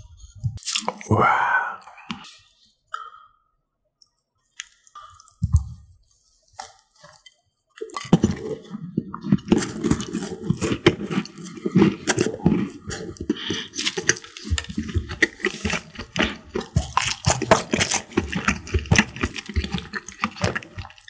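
Milk pouring from a carton into a glass mug, rising in pitch as the mug fills. After a few quiet seconds comes close-miked chewing of a chocolate-covered scone: dense, moist, crackly mouth sounds from about eight seconds in.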